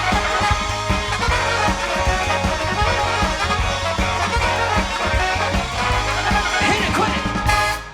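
Soul band playing an instrumental passage: horn section over drums and bass with a steady beat, closing on a held chord that stops abruptly near the end.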